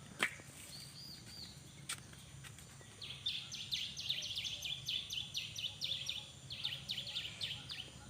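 A small bird sings a fast run of sharp, falling chirps, about four or five a second. It starts about three seconds in and stops near the end. A couple of faint taps come before it.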